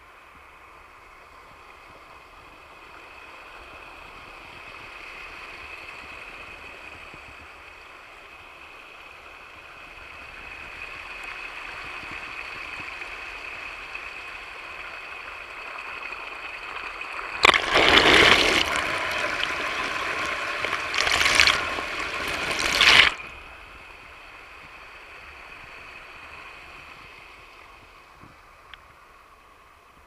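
Small stream waterfall splashing and trickling close to the camera. Just past halfway it turns into a much louder rush of splashing for about five seconds, then drops back to a quieter trickle.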